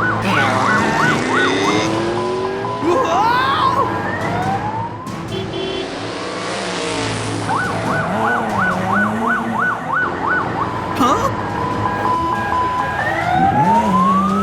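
Fast hi-lo two-tone siren switching between two pitches about three times a second, heard at the start and again in the middle, mixed with several rising and falling whistle-like glides.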